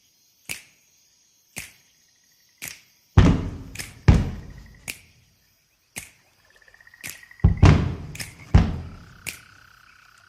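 Opening of a pop dance track before the vocals: sharp clicks about once a second, then deep booming hits from about three seconds in, with short electric buzzing tones between them and a steady hum near the end.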